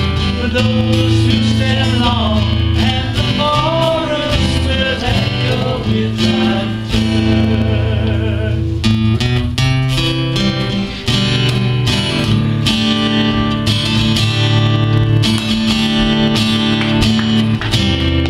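Several acoustic guitars strummed together, with singing over them.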